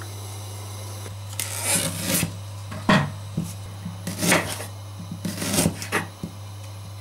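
Kitchen knife slicing fresh ginger root on a wooden cutting board: several short cuts and knocks, the sharpest about three seconds in, over a steady low hum.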